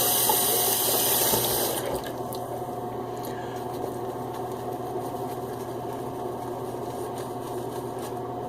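Water running hard from a faucet into a sink to rinse soap-slick hands, cut back sharply about two seconds in, after which a quieter steady hiss continues.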